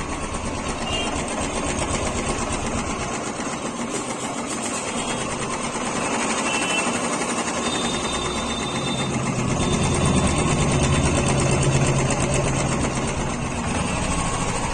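Royal Enfield Classic 350 single-cylinder engine idling with a rapid, even tik-tik of tappet noise from the cylinder head, which the mechanic calls loud and means to trace by checking the valve free play. The engine sound grows somewhat louder in the second half.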